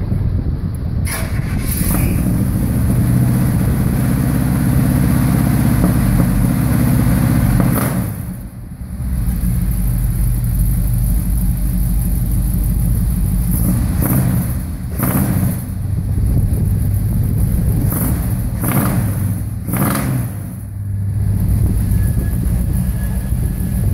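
1963 Chevy Impala V8 running through new headers and MagnaFlow mufflers: a steady deep rumble that picks up about a second in, dips briefly, then several short throttle blips in the second half.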